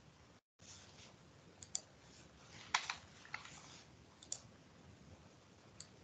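Faint, scattered clicks of a computer mouse and keyboard, a handful over several seconds, the loudest cluster about three seconds in. The sound drops out completely for a moment about half a second in.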